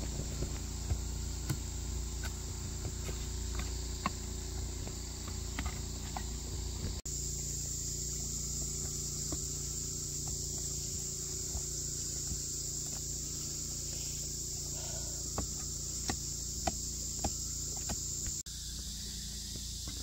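A steady high-pitched drone of insects, with scattered sharp clicks and knocks.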